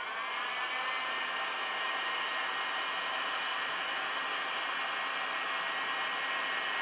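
Handheld hot-air blower running steadily with a whining motor, drying a freshly applied coat of coloured resin on a leather steering wheel. The whine rises in pitch in the first half second as the motor spins up, then holds even.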